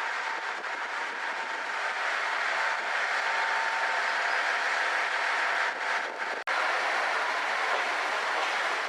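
Noto Railway Nanao Line diesel railcar running along the track: a steady noise of wheels on rail and engine. The sound cuts out for an instant about six and a half seconds in.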